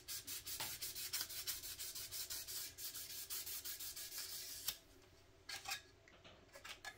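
Sanding pad rubbed back and forth over the plastic body of a 1/25 scale model car in quick short strokes, about four a second, smoothing filler and scratches before primer. The strokes stop about three-quarters of the way through, then a few more come near the end.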